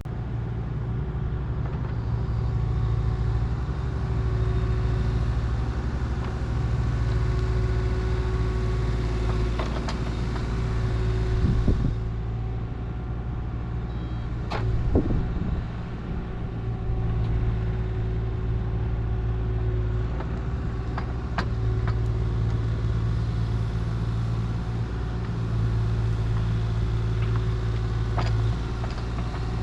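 Heavy-equipment diesel engine running steadily, its level rising and falling, with a few short sharp clanks, the loudest about 15 seconds in.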